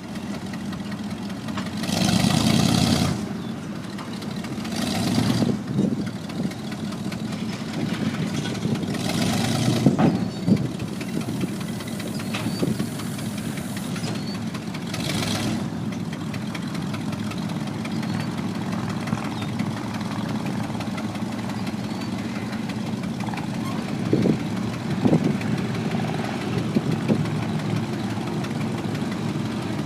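The Ford engine of a 1979 Champion Spotter yard tractor running at idle with a steady low drone. Four brief, louder rushes of noise come over it in the first fifteen seconds, with a few short knocks later on.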